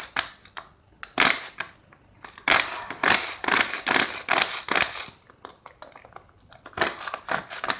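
Hand-pulled cord chopper spinning its blades through garlic and shallots: repeated pulls of the cord give short bursts of plastic rattling and crunching, with a longer run in the middle and quick clicks near the end. It is being pulled while held upside down, which makes the pull stiff.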